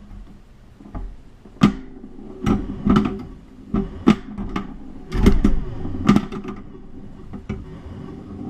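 Stern Stargazer pinball machine in play: about ten sharp clacks of flippers, solenoids and the ball hitting the playfield parts, at irregular intervals, over the machine's steady electronic tones.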